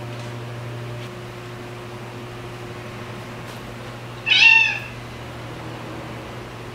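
A cat meows once, a single short, loud meow about four seconds in, over a steady low hum.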